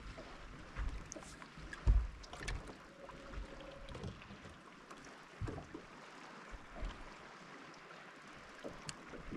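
Water lapping against a bass boat's hull, with a few dull knocks on the boat. The loudest knock comes about two seconds in.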